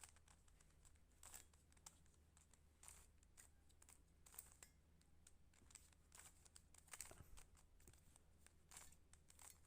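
Faint, irregular plastic clicks and scrapes of a Rubik's cube's layers being turned over and over, with a low steady hum underneath.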